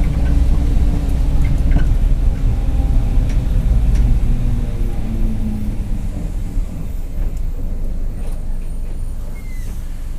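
Mercedes-Benz OF-1721 city bus under way, its diesel engine pulling heavily and then easing off about halfway through, with the drive differential growling.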